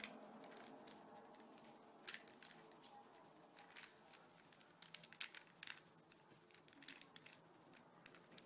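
Faint, irregular clicks of a Void Cube's plastic layers being turned by hand. A few isolated clicks early on give way to a quicker cluster of turns from about five seconds in.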